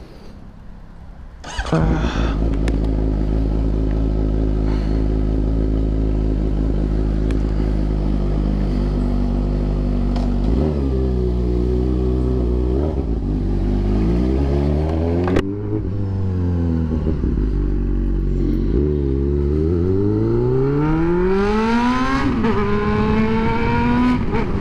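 2013 Honda CB600F Hornet's inline-four engine starting suddenly about two seconds in and idling steadily. After about ten seconds the revs rise and fall in steps as the bike rides off, with a click and a drop in pitch in the middle. Near the end the pitch climbs steadily under acceleration.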